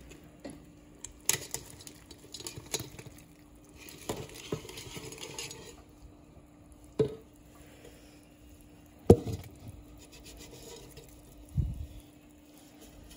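Kitchen handling at a stainless stockpot of seafood boil: scattered clicks and knocks, a brief rustling slither as raw shrimp are poured in from a container, and a single sharp knock, the loudest sound, about nine seconds in. A steady low hum runs underneath.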